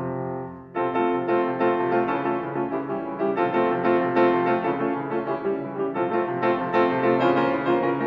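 Steinway D concert grand piano playing solo. A held chord dies away, and just under a second in a new passage begins of quickly repeated chords and broken-chord figures.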